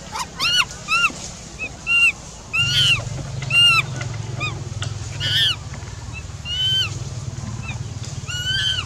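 An animal giving short, high-pitched calls that rise and fall in pitch, about a dozen in quick succession, over a steady low hum that grows louder about two and a half seconds in.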